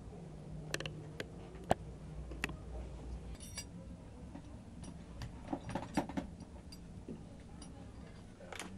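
Scattered light clicks, knocks and clinks of small objects, a glass bottle and a metal fitting, being handled by hand, with the sharpest knock about two seconds in and a quick cluster of clicks a little past the middle.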